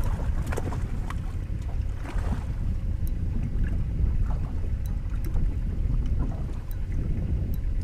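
Wind rumbling on the microphone over water lapping against a fishing boat's hull, with scattered faint ticks and small splashes.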